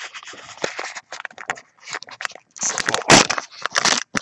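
Foil wrapper of a baseball card pack crinkling and crackling as it is pulled and torn open, loudest about three seconds in.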